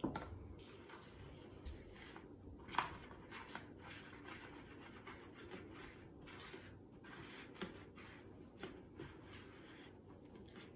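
Homemade glue-and-detergent slime being kneaded and squished by hand in a plastic bowl: faint soft rubbing with many small clicks, and a sharper knock at the start and another about three seconds in.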